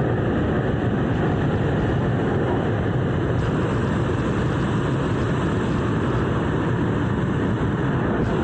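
Hot-air balloon's propane burner firing overhead: it cuts in suddenly with a loud, steady rushing blast that does not let up.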